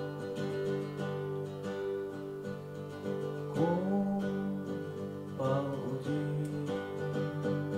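Acoustic guitar playing a song's intro, sustained chords with a short melodic line that glides in pitch a few seconds in.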